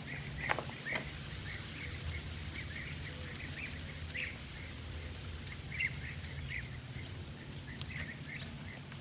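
Small birds chirping in short, irregular calls over a steady low hum, with a couple of sharp clicks about a second in.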